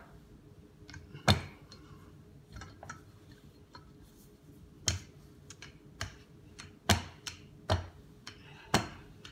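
Marble rolling pin rolling out bread dough on a cutting board, giving about six sharp, irregular knocks and a few lighter ticks as the pin and board bump while it is pushed back and forth.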